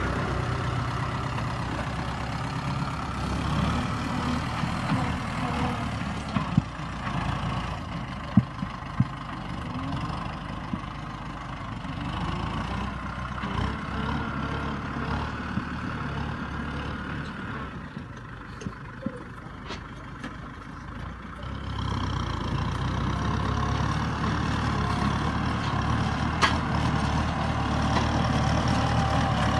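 Kubota tractor's diesel engine running steadily as it pulls a disc plow through the field, dropping in level for a few seconds past the middle as it moves off and growing louder again after. A few sharp clicks stand out over the engine.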